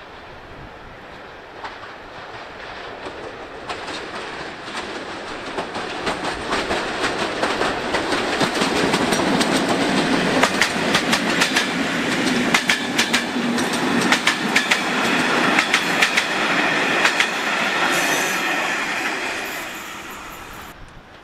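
A passenger train hauled by an EU07 electric locomotive passes, its wheels clacking over the track in quick runs of clicks. It builds to a peak over the middle of the pass and fades away near the end.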